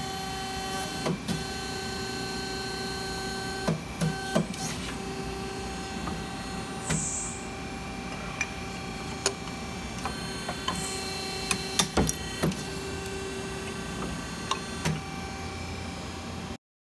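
Metal-forming press with a tube-flattening die set running with a steady motor hum, with scattered sharp metallic knocks and clanks as the die flattens the end of a Schedule 40 steel tube. The sound cuts off suddenly near the end.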